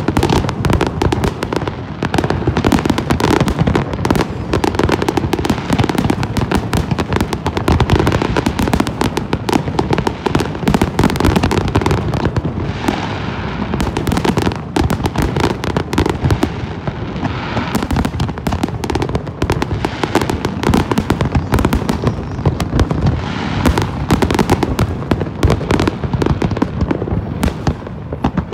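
Large aerial fireworks display at its height: a dense, unbroken barrage of overlapping bangs.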